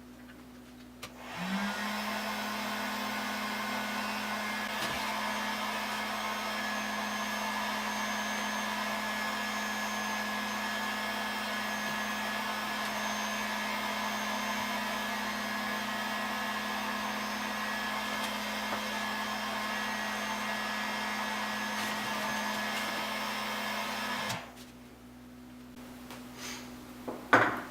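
Heat gun switched on about a second in; its motor spins up and then runs steadily with a blowing hiss while it heats a rigid watercooling tube soft enough to bend. It switches off a few seconds before the end, and a single sharp knock follows.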